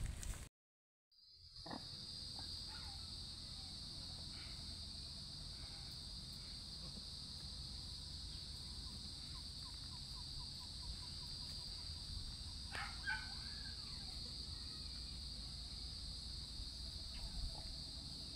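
Insects droning steadily at a high, even pitch, with a low rumble underneath. A few faint short chirps come through, the clearest with a soft click about two-thirds of the way in.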